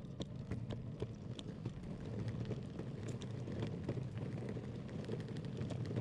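Electric longboard rolling over a road surface: a steady low rumble from the wheels with many small irregular clicks and ticks.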